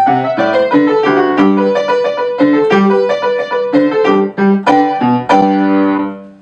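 Upright piano played solo, a quick succession of notes ending on a held chord about five seconds in that fades out near the end.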